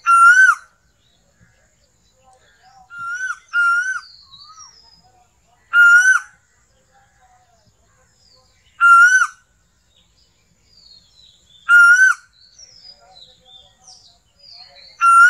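Asian koel (koyal) calling: a loud, short, whistled note that rises and drops, repeated about every three seconds, once doubled. Fainter chirps of other birds run between the calls.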